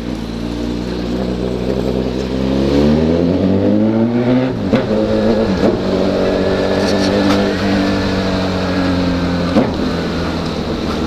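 Honda CB1000 inline-four with a 4-into-1 exhaust being ridden. The engine rises in pitch under acceleration, breaks at a gear change about four and a half seconds in, then pulls on steadily and slowly eases off.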